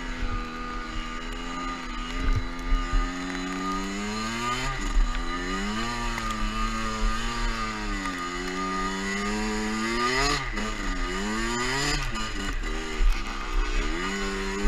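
Two-stroke dirt bike engine riding under throttle, its pitch climbing and falling as the revs change, dropping and picking up again several times, most often near the end.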